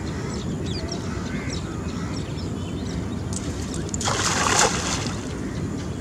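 A hand-thrown cast net lands on the water about four seconds in, a brief spreading splash as its weighted rim hits the surface. Small birds chirp, and a steady low rumble runs underneath.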